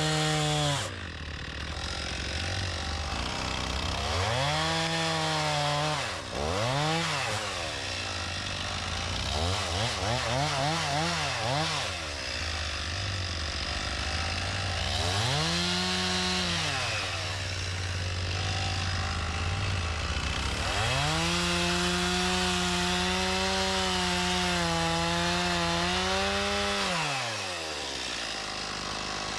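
Stihl MS 391 two-stroke chainsaw revving up and down while bucking logs. It gives several short throttle blips, then holds a long run at high revs that drops back to idle near the end.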